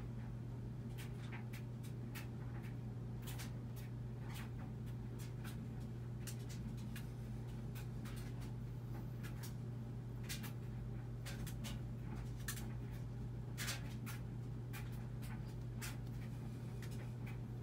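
A steady low hum throughout, with faint, irregular small ticks and scratching from slow push-ups on a foam exercise mat.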